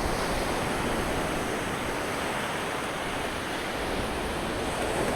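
Sea surf washing onto the shore with a steady rush, mixed with wind.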